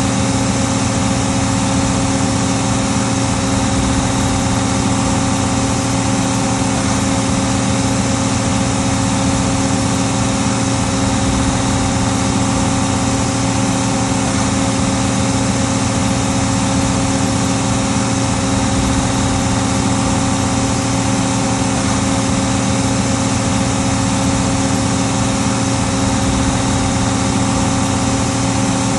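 Case 1570 tractor's six-cylinder diesel engine running at steady speed while pulling a five-bottom plow. It holds one even, unchanging pitch throughout.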